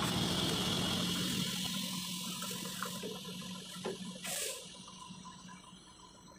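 Compressed air hissing out of a truck's air tank, fading steadily as the pressure bleeds down, with a brief louder spurt about four seconds in.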